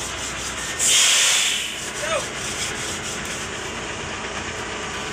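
A loud hiss about a second in, lasting under a second, over steady background noise, with a faint short rising chirp just after two seconds.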